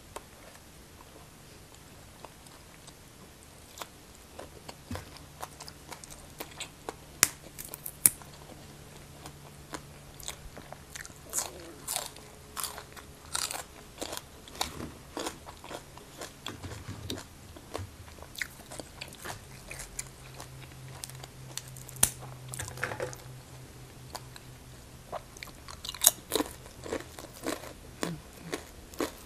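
Close-miked chewing and crunching of a mouthful of sticky rice dipped in green papaya salad (som tam): wet crunches and mouth clicks at an uneven pace. The crunches start a few seconds in, with the loudest ones about seven seconds in and again near the end.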